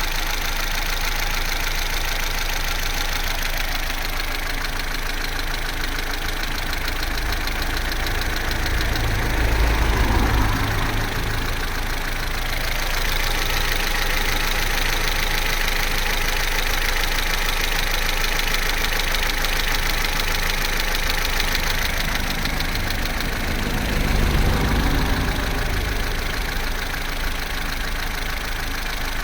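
Corsa C's Z14XEP 1.4-litre four-cylinder petrol engine idling steadily. The low rumble swells briefly twice, about ten seconds in and again near 24 seconds.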